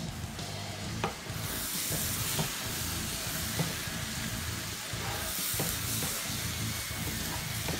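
Chopped cabbage and vegetables sizzling in a frying pan while a wooden spatula stirs them, with a few separate clicks and scrapes of the spatula against the pan. The sizzle grows louder about a second and a half in.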